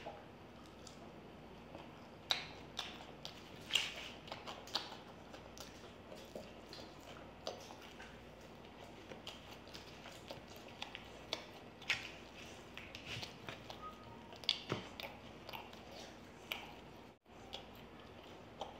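Close-miked eating: chewing and mouth sounds of people eating noodles and fried chicken, in many short, irregular smacks and clicks.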